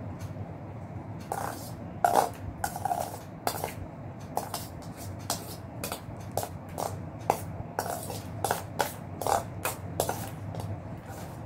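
Metal spoon clicking and scraping against a stainless-steel bowl while eating, in short irregular clinks one or two a second.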